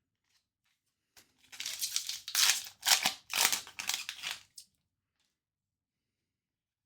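Foil trading-card pack wrapper crinkling and tearing as a pack is torn open, a burst of rustling lasting about three seconds.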